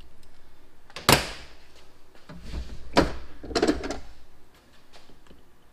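Two sharp metallic clanks about two seconds apart, each with a brief ring, from hand tools and parts being handled on a metal workbench.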